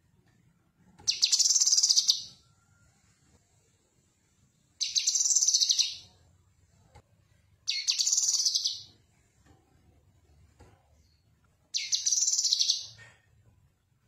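Cucak kinoi, a leafbird, singing in four short bursts of rapid high notes, each a little over a second long, with pauses of a couple of seconds between them.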